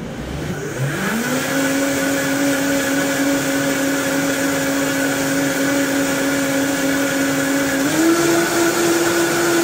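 Vitamix high-speed blender blending a thick green smoothie. The motor spins up within about a second of starting, runs at a steady pitch, then steps up to a higher speed about eight seconds in.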